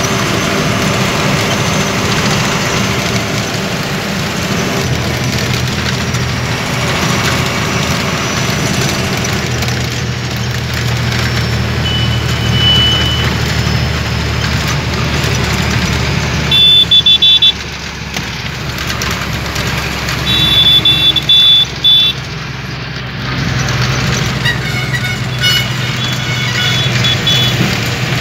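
Steady engine and road noise with a low drone, heard from inside a large vehicle moving along a highway. Vehicle horns sound over it: a short beep a little before halfway, two loud longer blasts in the second half, then a run of quick beeps near the end.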